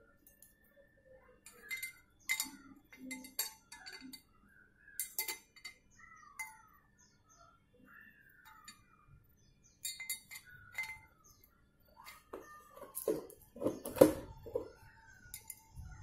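Steel bicycle chainrings and crank parts clinking and rattling against each other as they are lifted off and fitted onto the crank spider, sharp irregular clinks with the loudest cluster near the end. Birds chirp in the background.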